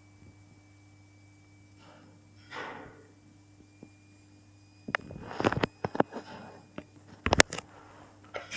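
A series of sharp mechanical clicks and clunks from a 1976 SLZ passenger lift, beginning about five seconds in, with the loudest pair a little after seven seconds. Under them runs a faint steady hum.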